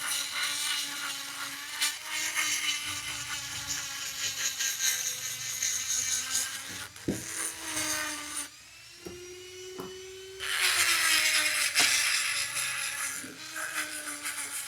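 Small electric rotary tool grinding old magnet glue off the inside of an electric scooter hub motor's rotor: a steady motor whine under a grinding hiss. A little past the middle the grinding stops for about two seconds and the whine rises in pitch as the tool runs free, then grinding resumes.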